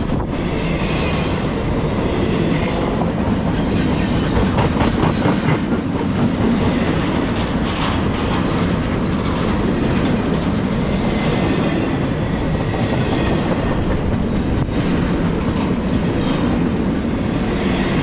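Freight train of empty intermodal double-stack well cars rolling past: a steady rumble of steel wheels on rail, with the clickety-clack of wheels passing over rail joints.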